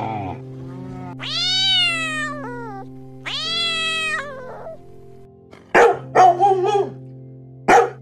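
A wet cat meowing while it is bathed: two long drawn-out meows that rise and then fall in pitch, followed by a few shorter, louder cries about six seconds in, over steady background music.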